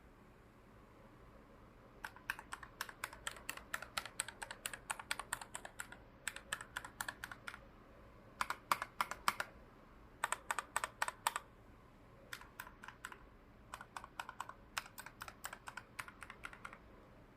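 Keychron K1 Pro low-profile mechanical keyboard being typed on: quick runs of key clicks in bursts of a second or two with short pauses between, starting about two seconds in.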